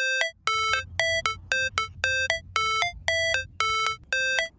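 Background music: a bright electronic tune of short, quick, repeating beeps, about three a second, over a faint low rumble.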